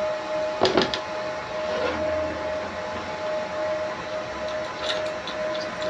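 Laser engraving machine running as it engraves an air-rifle part: a steady hiss with a thin tone that keeps switching on and off as the laser marks. A couple of sharp knocks come just under a second in.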